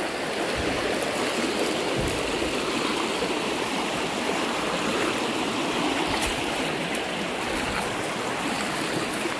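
River water rushing steadily over rocks in a fast shallow current, with a few faint low bumps.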